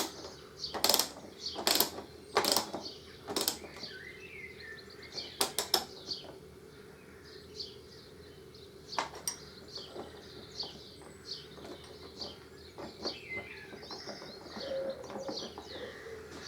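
Small birds chirping throughout, over sharp clicks and knocks of hand tools on metal fittings: four about a second apart at the start, a few more around five to six seconds in and two near nine seconds.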